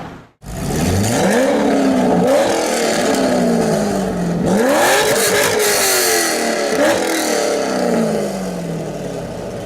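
Corvette engine being revved hard: four quick throttle blips, each climbing fast and then dropping slowly back toward idle, after a brief cut just after the start.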